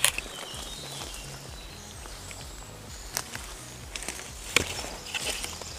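Footsteps and rustling of a person moving through forest undergrowth, with two sharp clicks, about three seconds in and about four and a half seconds in.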